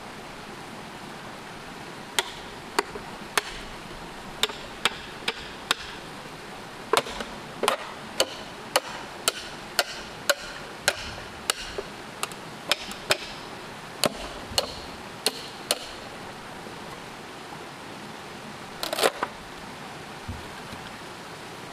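Repeated sharp blows of a hand tool striking wood or bamboo, about two dozen at just under two a second, then a short quick cluster near the end, over a steady background hiss.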